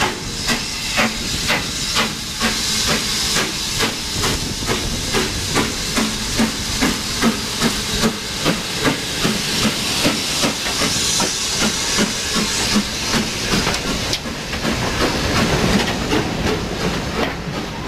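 Steam locomotive, a BR Standard Class 9F, pulling away under load past the listener: sharp exhaust chuffs about twice a second, slowly quickening, over a steady hiss of escaping steam. Near the end the chuffs fade and the hiss of the coaches rolling past takes over.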